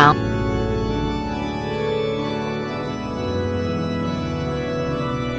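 Background music of slow, held chords with no other sound over it.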